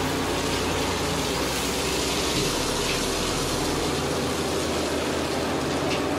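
Remote-control toy excavator's motors and pump whirring steadily as the boom lifts and the bucket curls.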